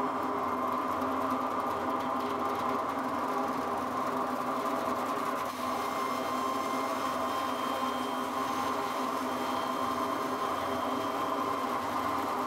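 Large water-cooled circular stone saw running, its blade slicing a stone block into slabs: a steady mechanical hum with several held tones.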